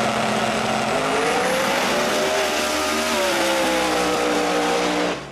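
Fox-body Mustang no-prep drag car launching and making a full-throttle pass, its engine loud and rising in pitch over the first couple of seconds, with a step in pitch about three seconds in. The sound cuts off suddenly near the end.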